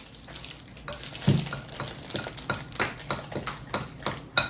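A spoon or whisk stirring in a mixing bowl, clinking against its side in a quick run of knocks, about three a second, some with a short ring.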